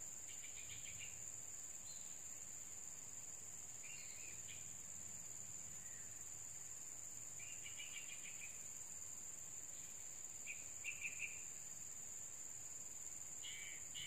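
Steady high-pitched insect drone, with short bursts of rapid chirping from small birds five times, the loudest about eleven seconds in.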